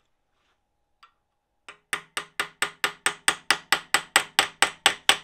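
Hammer blows on a socket held as a drift against the seized piston of a Triumph TR7 clutch master cylinder clamped in a vise. After a couple of faint clicks, a fast, even run of metallic strikes begins about two seconds in, about four to five a second, each ringing briefly. This is an attempt to drive the stuck piston free.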